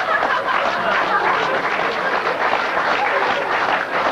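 Theatre audience laughing and applauding together in response to a joke.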